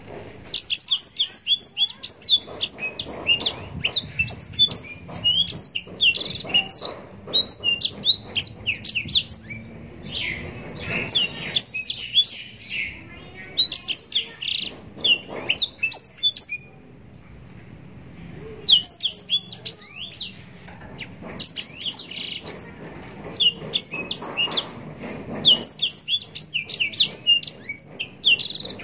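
Blackthroat (black-throated canary) singing a long, fast run of chirping and warbling notes, with a break of about two seconds about two-thirds of the way through.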